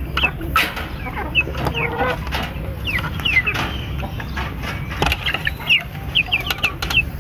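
Aseel chickens clucking, with many short, high, falling peeps scattered throughout.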